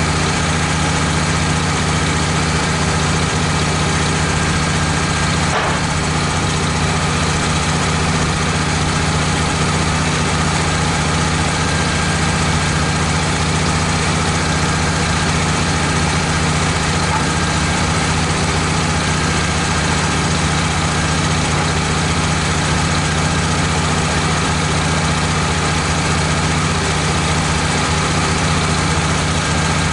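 Wood-Mizer LT15 portable bandsaw mill running steadily, with a constant engine hum.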